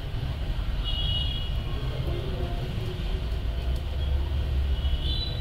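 Hot air rework station blowing steadily, a low rumble of airflow, heating an SMD coil to desolder it from a phone board. Faint brief high whistles come about a second in and again near the end.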